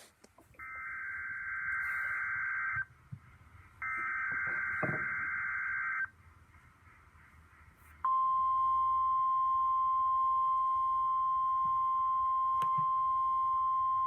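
Emergency Alert System broadcast tones from NOAA Weather Radio: two roughly two-second bursts of screechy digital SAME header data with a short gap between, then about eight seconds in the steady 1050 Hz warning alarm tone starts and holds.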